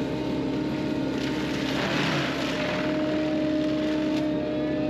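Excavator-mounted FAE UML/HY-125VT fixed-tooth forestry mulcher running at speed, its rotor chewing into brush and soil. There is a steady droning hum with a rougher grinding swell about two seconds in.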